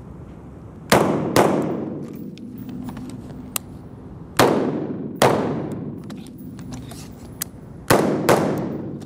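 Three pairs of shots from an AR-style carbine, each pair fired about half a second apart with a few seconds between pairs. Every shot rings on in the echo of an indoor range.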